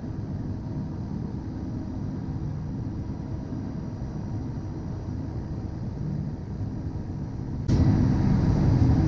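Steady low rumble of a Cessna Citation Excel jet's cockpit on final approach, with a faint steady hum. Near the end it steps up suddenly, louder and fuller.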